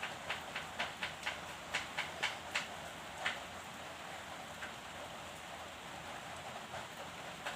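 Short scratchy strokes of writing on paper, about three a second and then stopping after about three seconds, over faint steady hiss.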